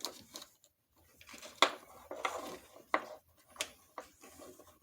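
Small hard plastic and metal parts being handled and fitted by hand: a run of sharp clicks and light clatter, about five of them, the loudest about a second and a half in.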